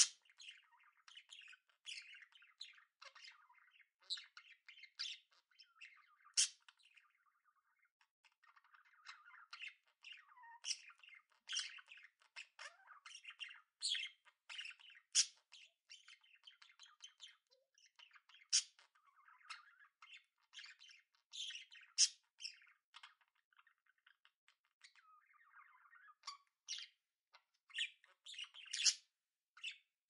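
Budgerigars chattering: a continuous run of warbling chirps broken by short, sharp squawks, with a brief pause about eight seconds in.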